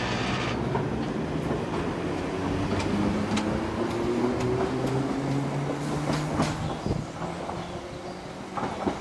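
Island Line Class 483 electric train, ex-London Underground 1938 tube stock, pulling away and accelerating. A whine rises in pitch from about two seconds in, over a steady rumble, and the wheels click over the rail joints several times.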